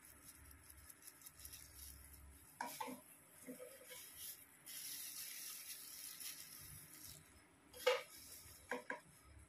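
Faint rustling of clear plastic gloves and hair being handled while hair dye is worked into the roots with a tail comb. A few light clicks or knocks come through, the loudest just before the end.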